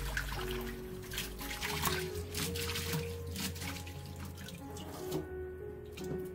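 Water sloshing and splashing in a stainless steel bowl as hands scrub and rinse seaweed stems, then lift them out dripping, over background music. The splashing eases off about five seconds in.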